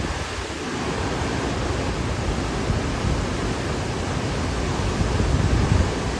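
Hurricane wind: a steady rushing noise, with gusts buffeting the microphone in low rumbles that grow stronger near the end.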